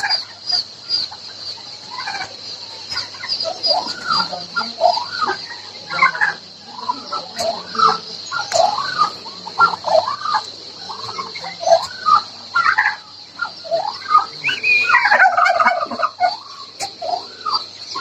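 Many chickens crowded together, clucking and squawking over one another in short overlapping calls, with a busier burst of calls about three-quarters of the way in. A rapid, even high-pitched chirping and a steady low hum run underneath.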